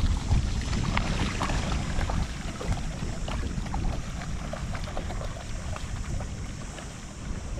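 Wind rumbling on the microphone over small, irregular splashes and laps of water, growing gradually quieter.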